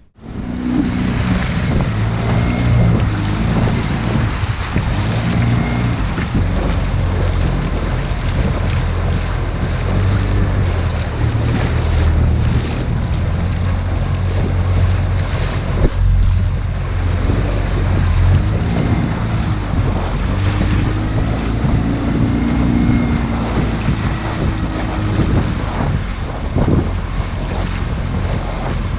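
Wind buffeting the microphone over a steady rush of sea water splashing and lapping around an inflatable boat's hull.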